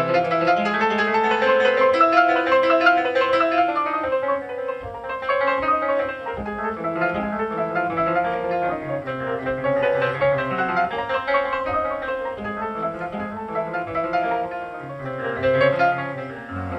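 A symphony orchestra and solo piano playing classical music: rapid piano notes over sustained strings.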